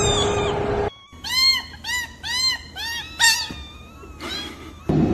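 Kitten mewing: a quick run of about five short, high mews, each rising and falling in pitch, then a fainter one.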